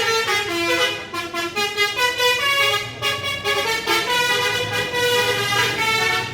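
Bus telolet horn, a set of air horns playing a tune of notes that step up and down without a break.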